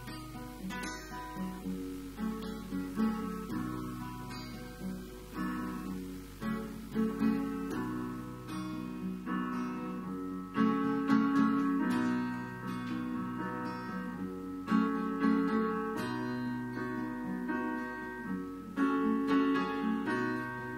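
Acoustic guitar and a Roland digital piano playing a song's instrumental opening, with no singing. The music gets louder about halfway through.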